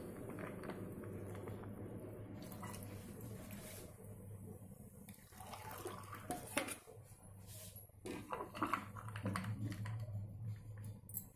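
Blended watermelon juice pouring from a mixer jar into a glass over ice cubes and soda. A few light knocks and clinks follow from about halfway.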